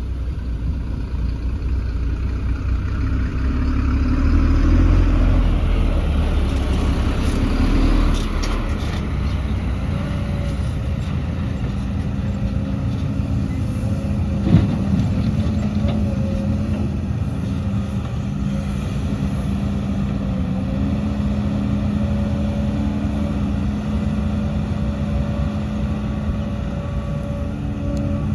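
Diesel engine of heavy earthmoving machinery running steadily, rising in load about four to eight seconds in and settling into an even drone, with one sharp knock about halfway through.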